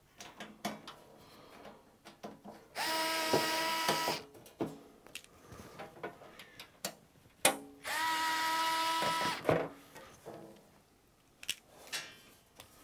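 Cordless electric screwdriver running twice, each time a steady motor whine lasting about a second and a half, as it backs out the screws holding a metal battery case's front panel. Small clicks and knocks come between the two runs.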